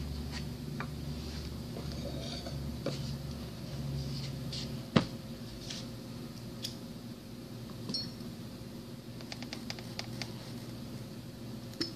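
Metal parts of a pump's mechanical seal clinking and knocking as they are handled and fitted on a workbench, with one sharp metallic knock about five seconds in, over a steady low hum.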